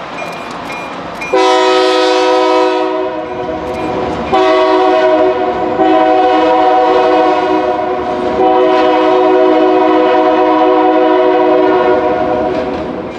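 Diesel locomotive air horn blowing a chord of several notes in a series of long blasts, the first starting about a second in, over the steady noise of the passing train.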